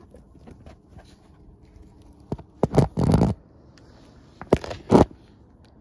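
Rough scraping and rustling against a stone wall and leaves as a climber grips the stonework with the phone brushing it, in two loud bursts: one about two seconds in and another about a second later.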